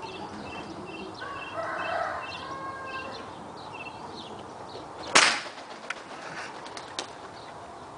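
A single airgun shot, a sharp crack about five seconds in. Before it, small birds chirp over and over, and a few faint clicks follow the shot.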